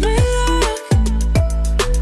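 Background music: a track with deep bass notes and a lead melody whose notes slide down in pitch.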